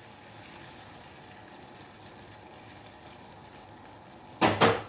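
Liquid cream poured into a hot sauté pan around a browned chicken thigh and shallots, with the pan simmering with a faint, steady hiss. A short, much louder sound comes near the end.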